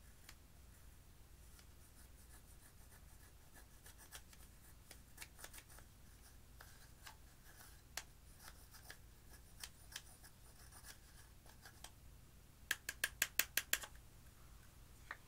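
Metal pick scraping pressed eyeshadow out of its plastic compact: faint scratches and scattered clicks, one or two a second. Near the end, a quick run of about eight sharp taps as the compact is knocked over the glass dish to empty it.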